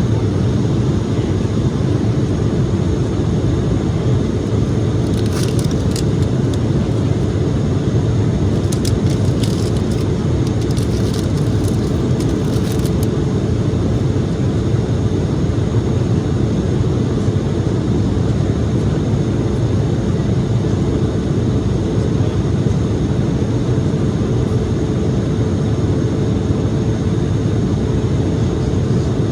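Cabin noise inside an Embraer E-175 jet in flight: the steady rush of airflow and turbofan engines, with a faint steady hum.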